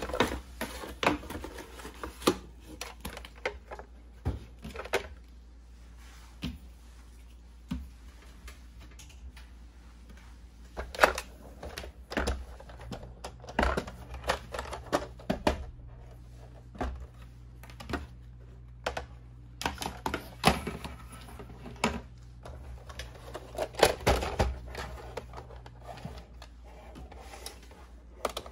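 Hard plastic clicks, taps and knocks as a toy remote-control pickup truck and its cardboard packaging are handled, lifted out and turned over, coming irregularly in clusters. A faint low steady hum runs underneath for much of the middle.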